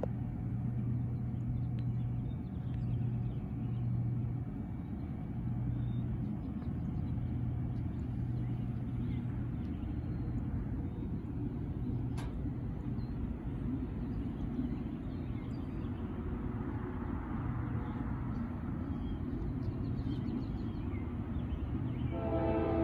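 Steady low rumble of distant diesel locomotives, swelling and fading. Just before the end a multi-chime locomotive air horn starts sounding a chord, louder than anything before it.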